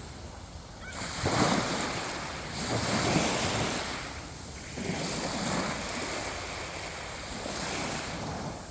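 Sea waves breaking and washing on a beach, a steady rush that swells louder a few times, with wind on the microphone.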